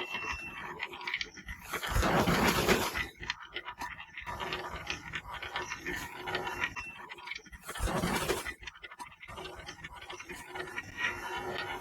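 Marbles rolling and clicking down a marble run track, a steady patter of small knocks, with two louder rushing rattles of many marbles at once, about two seconds in and again around eight seconds.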